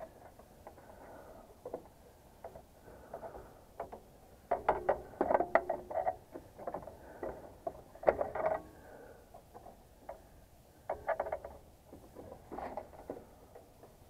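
Hand tool working on wires and terminals inside a heat pump's electrical control box: clicks, taps and metal scraping in short bursts, the loudest about halfway through and again near the end.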